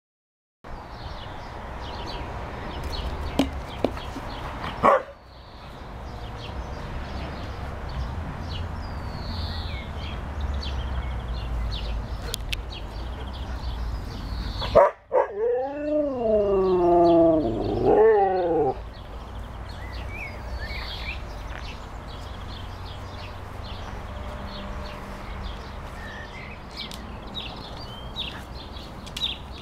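Siberian husky giving one long, wavering call about halfway through, its pitch rising and falling several times over about four seconds.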